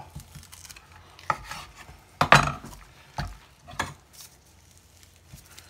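Knife work on a raw chicken on a wooden cutting board: a handful of short knocks and scrapes from the blade and the handled bird, the loudest a little over two seconds in.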